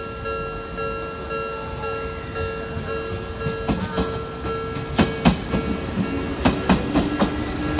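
Japanese level-crossing warning bell ringing in a rapid, steady pulsing tone. About halfway in, an Odakyu 7000 series LSE Romancecar electric train arrives and its wheels clack loudly and repeatedly over the rail joints as it passes.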